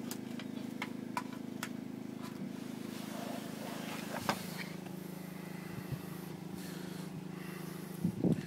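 A steady low mechanical hum, with scattered small clicks, a short knock about four seconds in and a louder double bump near the end.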